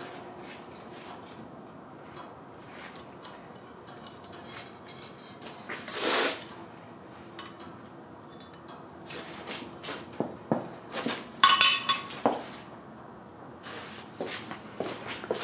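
Scattered light metallic clinks of blacksmith's tongs and a forged steel napkin ring against the anvil, the loudest a few seconds before the end. About six seconds in there is a short rustle as a paper napkin is pushed through the ring.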